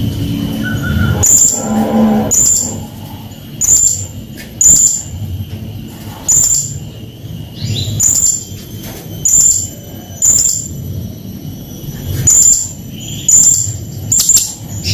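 Blue-crowned hanging parrot (srindit) giving short, shrill, very high-pitched calls over and over, about one a second.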